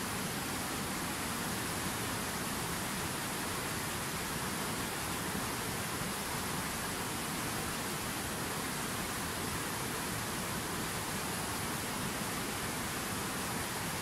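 Fast white-water mountain river rushing over rocks: a steady, even roar of water that does not change.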